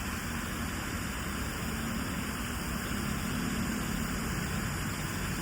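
Outdoor water fountain splashing: a steady rush of falling water, with a low, even rumble beneath it.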